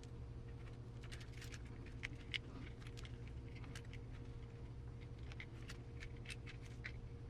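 Faint, irregular small clicks and ticks of small plastic parts and screws being handled during assembly of an RC receiver box, over a steady low hum.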